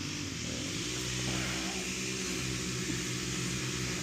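A motor or engine running steadily, with an even low hum.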